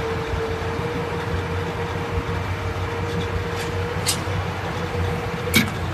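Hydraulic system of an Altec bucket truck boom whining in one steady tone over the Ford F450's idling engine as the boom arm articulates upward. The whine stops with a sharp click about five and a half seconds in.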